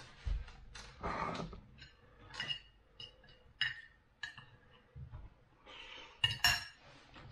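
Knife and fork clinking and scraping on a plate while cutting sausage: a scattering of short clinks, the loudest near the end.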